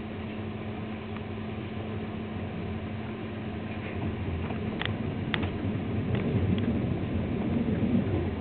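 Inside a passenger train carriage: low rumble of the train running over the tracks, growing louder about four seconds in, with a few sharp clicks.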